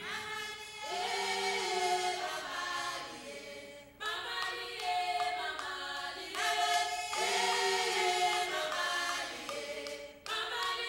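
A choir singing, many voices together in long held phrases, with short breaks about four seconds in and again near the end.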